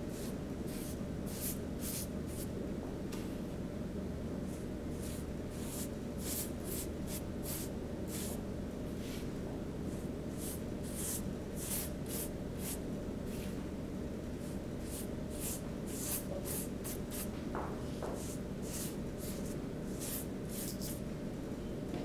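A small paintbrush stroking wet paint across corrugated cardboard: many short swishes in quick, uneven runs, over a steady low hum.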